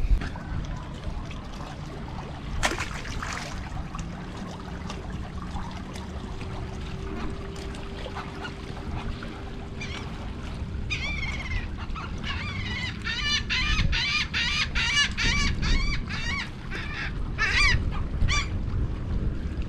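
Gulls calling overhead: a quick run of short, squealing calls starts about halfway through and goes on for several seconds, over a faint steady hum.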